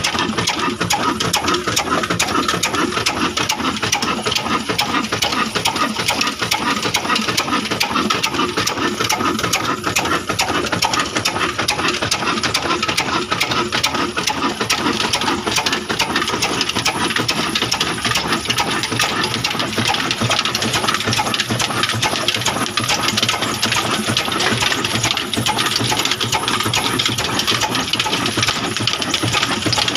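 Old black stationary diesel engine running steadily with its heavy flywheel, driving flat belts and line-shaft pulleys, a fast, even mechanical clatter that holds the same pace throughout.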